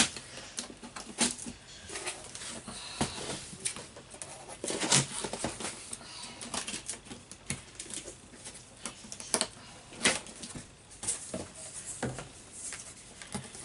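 Hands handling and opening a cardboard product box: irregular taps, knocks, scrapes and rustles as the box is turned, slid and its flaps opened.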